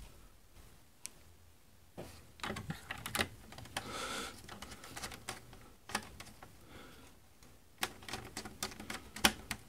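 Small screwdriver working the screw terminals of a 12 V switching power supply, fastening stripped wires: irregular light clicks and scrapes of metal on metal that start about two seconds in and come thicker near the end.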